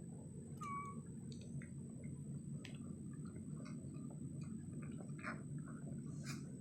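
Newborn Labrador retriever puppies stirring and snuffling, with small wet clicks and soft rustles and a single short squeak about a second in.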